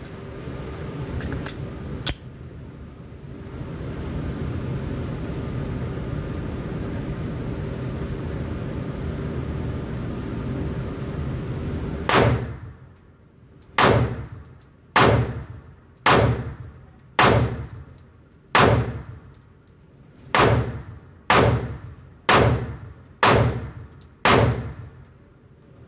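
Palmetto State Armory Dagger 9mm pistol fired about eleven times in an indoor range booth, roughly one shot a second, each a sharp crack with a short echoing tail. Before the first shot, about twelve seconds in, there is a steady rushing noise.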